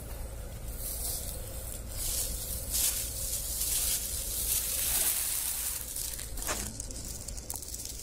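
Steady hiss of gas-fired brooder heaters in a poultry shed, swelling in the middle and easing again, over a constant low hum.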